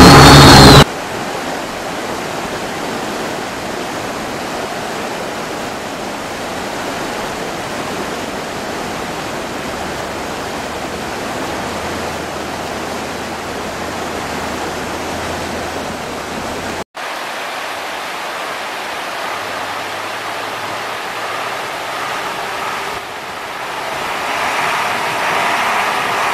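Fast river water rushing over rocks, a steady even noise. It opens with a brief loud burst, cuts out for an instant about 17 seconds in, and grows louder near the end, with faint steady tones under the water.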